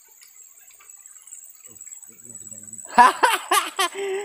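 Faint background with a thin, steady high-pitched whine, then a man talking loudly from about three seconds in.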